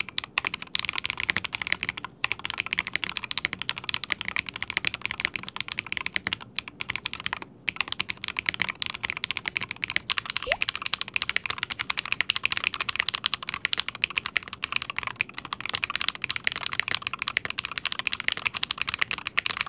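Fast, continuous typing on Luminkey Magger 68 HE aluminium-cased magnetic-switch keyboards, a dense stream of keystroke clacks. The first half is the Professional version with Gateron Magnetic Jade Pro switches; about halfway through it changes to the Performance version with Gateron Magnetic White Pro switches.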